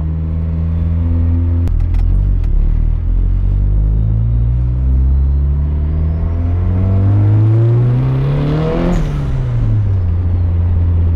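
Turbocharged Mazda Miata four-cylinder engine heard from inside the cabin under acceleration: after a gear change about two seconds in, the revs climb steadily for several seconds with a high whine rising alongside, then drop sharply near the end. It is a test pull on a freshly fitted used clutch disc, which holds without slipping.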